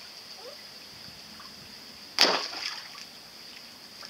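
A small toy foil kayak dropped into a pond: one sudden splash about two seconds in that trails off over half a second. A steady high-pitched whine sits in the background throughout.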